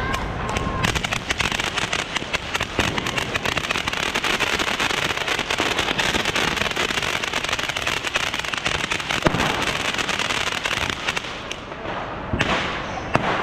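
Ground firework fountain on pavement spraying sparks, with dense, rapid crackling starting about a second in. The crackling dies down near the end, then a short second burst follows.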